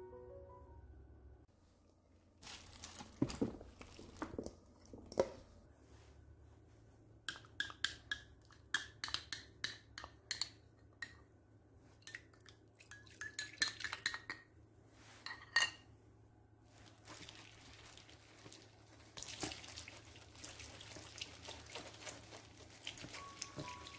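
Clinks, taps and scraping of a glass measuring cup against a stainless steel mesh strainer as thick soaked chili-powder paste is emptied into it. From about two-thirds of the way in, a steady rush of water being poured over the strainer as the paste is rubbed through the mesh.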